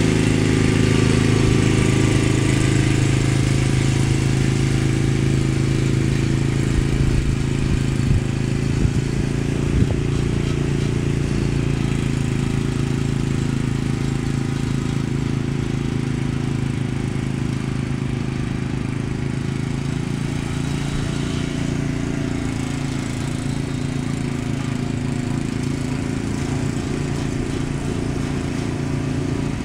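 Ariens Sno-Thro snowblower's 5-horsepower Tecumseh Snow King engine running steadily while clearing snow, growing slightly fainter as the machine moves away.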